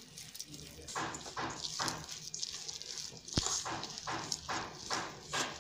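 Gram flour being mixed by hand with water into a thick batter in a steel bowl: repeated mixing strokes, about two a second, starting about a second in, with one sharp tap on the bowl a little past the middle.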